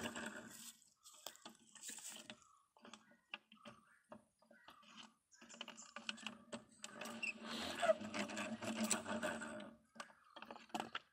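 Small hand-cranked centrifugal honey extractor: the comb basket rattling in its metal drum as it spins, then clicks and knocks as pieces of honeycomb are handled in the wire cage, with a longer stretch of rattling and rubbing about halfway through.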